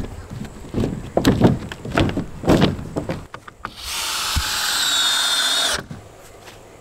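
Cordless drill driving a screw through a 2x4 purlin into a roof truss. It runs steadily with a high whine for about two seconds, then stops suddenly. A few knocks and handling thumps come before it.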